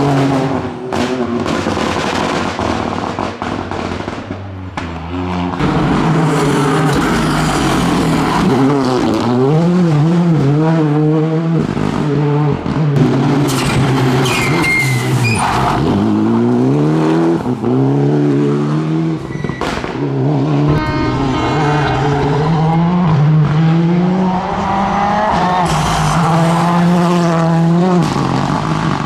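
Several rally cars passing one after another on a stage, engines revving hard, the pitch climbing and dropping repeatedly through gear changes and lifts, with some tyre noise on the loose surface.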